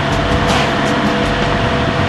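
Audi A4 B9 2.0 TFSI quattro's turbocharged four-cylinder driving on the road: steady engine hum with road and tyre noise, along with a couple of constant tones.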